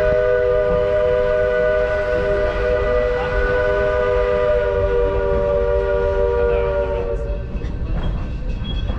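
Steam locomotive's whistle sounding one long, steady chord of several notes that cuts off about seven seconds in, over the low rumble of the moving narrow-gauge train.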